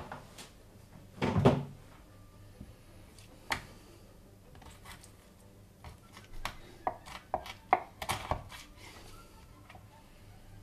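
Chef's knife knocking and tapping against a plastic cutting board while raw chicken is cut, with a louder thump about a second and a half in and a quick run of sharp taps in the second half.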